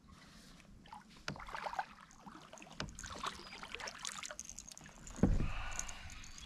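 Hooked largemouth bass splashing at the surface beside a fishing kayak as it is reeled in and swung up to the boat, with a loud thump against the kayak about five seconds in.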